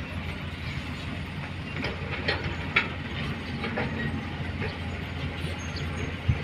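A Komatsu hydraulic excavator's diesel engine runs steadily at work beside a dump truck, with a few short metallic clanks.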